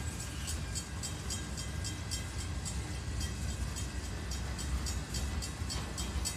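Intermodal freight train cars carrying highway trailers rolling past, with a steady low rumble and quick, regular clicks of wheels over rail joints.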